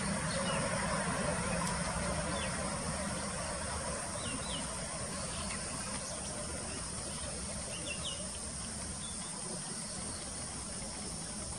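Jet airliner's engines running as it rolls away down the runway after landing: a steady, distant low sound fading slowly. A steady high hiss and a few short chirps sit over it.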